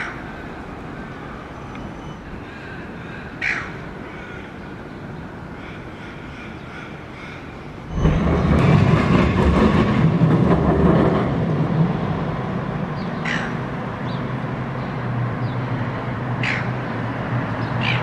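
Short harsh squawks of silver gulls, four in all, over steady city traffic noise. The traffic noise becomes much louder, with a deep engine hum, about halfway through.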